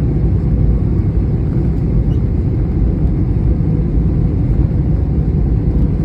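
Airplane noise: a steady low rumble, heavy in the bass and unbroken throughout.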